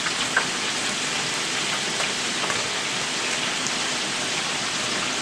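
Food frying in hot fat: a steady sizzle with a few faint pops and crackles.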